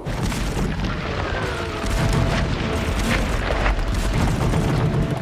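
Battle sound effects: a steady, rumbling din of booms with scattered gunfire, starting suddenly.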